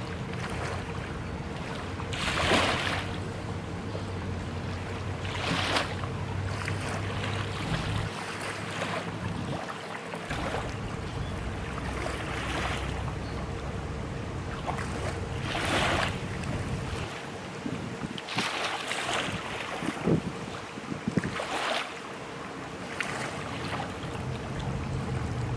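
River water lapping at the bank, with a soft splash or swell every few seconds, and wind on the microphone. A low, steady rumble runs underneath and drops away twice.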